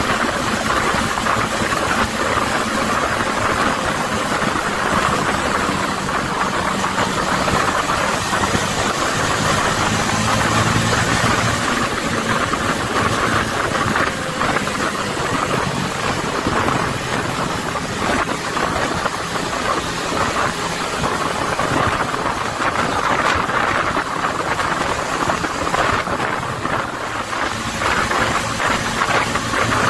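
Bus engine running on the move with steady road and tyre noise, heard from inside the cab. The engine note shifts a little about ten seconds in.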